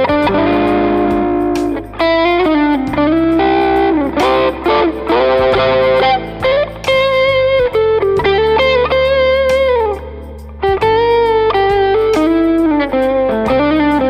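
PRS Singlecut Artist Package electric guitar with a Brazilian rosewood fingerboard playing a lead melody of held notes that bend and waver in pitch, over a backing track of bass and drums.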